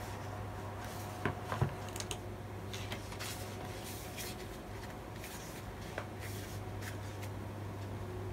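A small hardback Royal Talens sketchbook being handled: the cover opened and the pages folded back and rustling, with a few light knocks, over a steady low hum.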